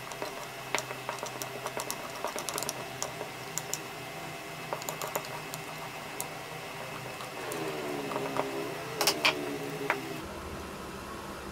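Small sharp clicks and taps of a flat steel tool working against a hex nut and the wood around it in a wooden knob, irregular and loudest about nine seconds in. A wavering pitched sound rises and falls in the background for a couple of seconds just before those loudest clicks.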